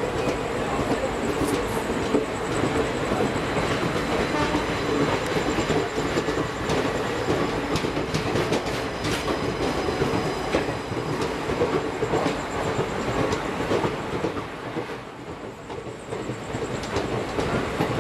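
Express passenger train running, heard from an open coach door: steady rumble of wheels on track with scattered clicks of wheels over rail joints, passing close alongside another train's coaches. The noise dips briefly about 15 seconds in.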